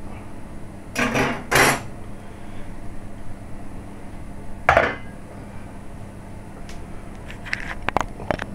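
Metal spoons clinking and clattering as they are handled and set down on a kitchen counter: two clatters about a second in, a sharper clink near the middle, and a few light clicks near the end.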